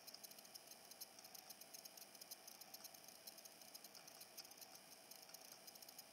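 Faint, quick crackling of a clear acetate plastic sheet as it is flexed and peeled off a cured resin casting: many tiny irregular crackles.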